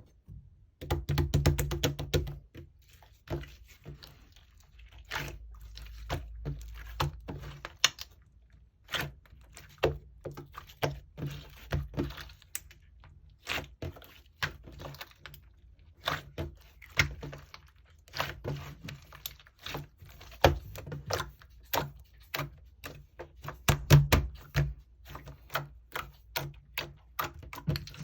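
Soft slime being squeezed and pressed by hand, giving an irregular string of sharp clicking pops from air trapped in it, with short lulls between squeezes.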